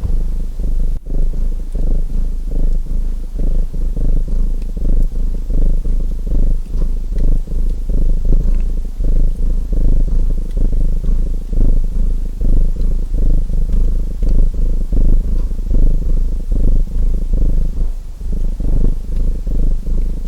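Domestic cat purring loudly and close up, the purr swelling and fading with each breath, about once a second, with faint crackles of a wood fire underneath. There is a momentary dropout about a second in.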